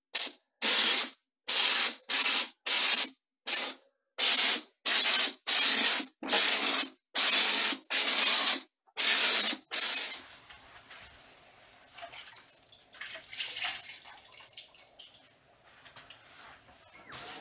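Drywall texture hopper gun, run on compressed air at high pressure, spraying a very watery joint-compound mix onto a wall patch. It sounds as about fifteen short hissing bursts over the first ten seconds, followed by only faint noise.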